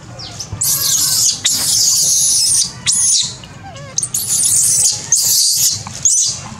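Baby macaque screaming in a series of high-pitched cries, several of them over a second long, with short breaks between.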